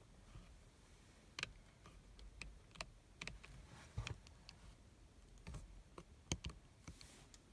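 Irregular clicks of the steering-wheel control buttons on a 2020 Vauxhall Grandland X being pressed, about a dozen sharp clicks spread unevenly, the loudest about a second and a half in, near three, at four and past six seconds.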